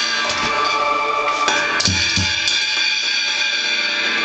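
A toddler striking a drum kit: a few irregular hits, with two low bass-drum thumps about two seconds in, over a recorded song playing.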